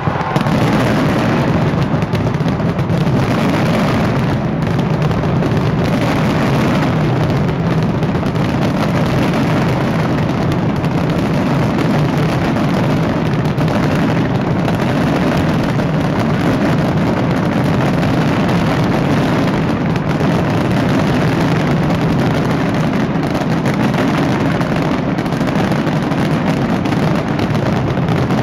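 Massed fireworks going off without pause: many bangs and crackles run together into one steady, loud rumble.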